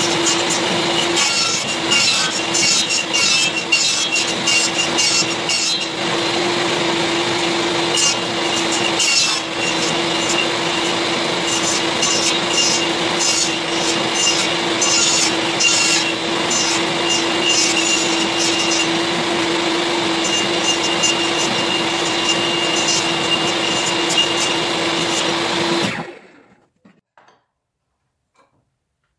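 Electric power tool running steadily while working wood, with a constant hum and a higher whine; it cuts off suddenly near the end.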